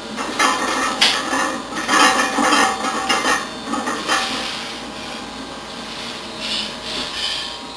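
A heavy loaded barbell being racked in a steel power rack after a squat: plates rattling and the bar knocking against the rack in a cluster of clanks and scrapes over the first few seconds. A single knock follows a little later.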